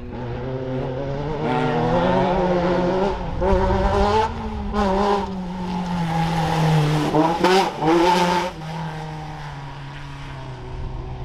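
Class 10 off-road race buggy's engine running hard, its pitch climbing as it accelerates and then slowly easing. The revs flare sharply a couple of times past the middle before it settles to a lower, steadier note near the end.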